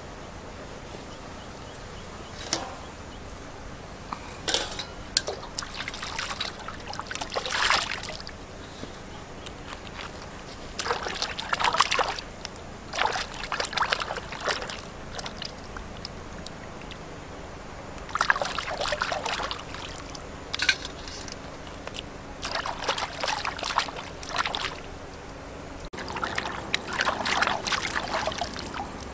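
Hands splashing and swishing in shallow stream water while rinsing blue crabs, in irregular bursts of a second or two, the longest near the end, over a steady hiss of running water.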